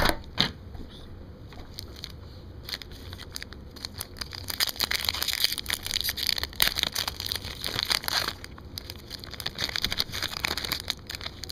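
Foil hockey card pack wrappers being torn open and crinkled by hand, with a few sharp clicks at the start and a dense run of crackling from about four and a half to eight seconds in.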